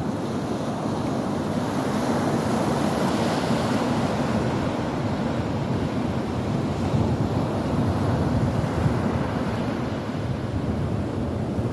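Ocean waves breaking and washing on the shore, a steady rushing surf that swells and eases slowly, with wind buffeting the microphone.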